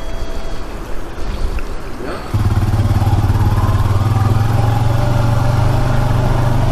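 ATV engine running, throttled up about two seconds in and then pulling steadily, much louder from then on.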